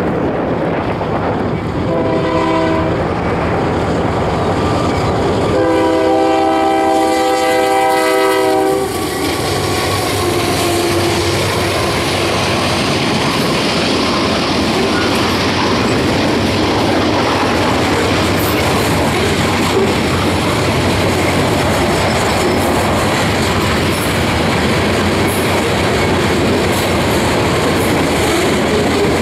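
Union Pacific GE diesel locomotive's air horn sounding a short blast, then a long one a few seconds later, at a grade crossing. The locomotives then pass and a long string of covered hopper cars rolls by, wheels clattering steadily on the rails.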